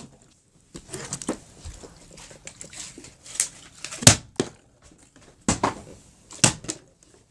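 Plastic water bottles being flipped and knocking down onto a hard surface: a scatter of sharp knocks, the loudest about four seconds in, with faint handling noise between.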